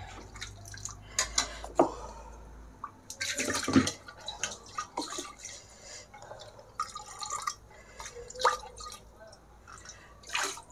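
Thick toor dal simmering in a steel kadhai, bubbles popping and spluttering at irregular moments, with a louder splutter about three and a half seconds in.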